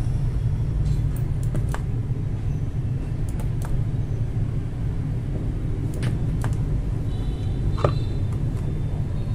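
Steady low hum with scattered light clicks and taps as a battery cell and the spot welder's copper electrodes are handled, one slightly louder click about eight seconds in.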